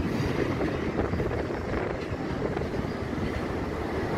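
Steady low rumble of double-stack container well cars rolling past on the rails.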